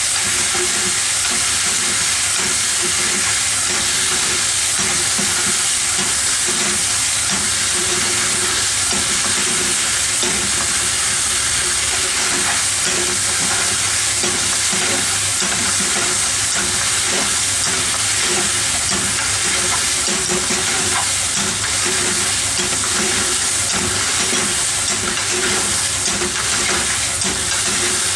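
Meat and vegetables sizzling in a frying pan as they are stir-fried, stirred with a wooden spatula and tossed: a steady frying hiss.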